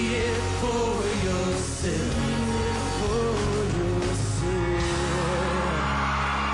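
Live pop-rock song with male lead vocals over a band. About five seconds in, the singing stops over a held chord and audience cheering begins to swell.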